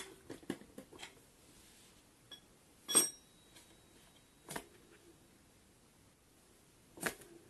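Scattered clicks and knocks of metal parts as a hub motor wheel is worked into an electric scooter's front fork. The loudest comes about three seconds in and rings briefly, with smaller knocks about a second and a half later and again near the end.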